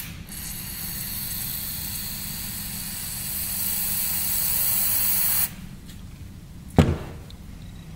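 Aerosol brake cleaner spraying in one continuous hiss for about five seconds into a port of a CAV diesel injection pump, flushing old diesel out of it. The spray cuts off abruptly and is followed about a second later by a single sharp knock.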